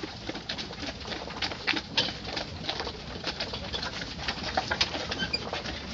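Clothing rubbing and knocking against the recording device's microphone: an irregular run of rustles and short clicks.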